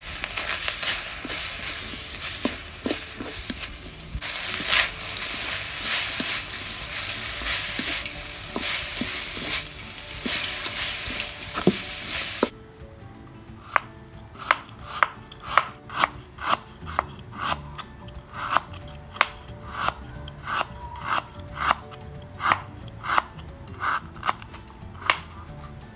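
Minced pork sizzling in a steel wok while a wooden spatula stirs and scrapes it. About halfway through this stops abruptly, and a kitchen knife slices garlic cloves on a wooden cutting board in a steady run of strokes, about one and a half a second.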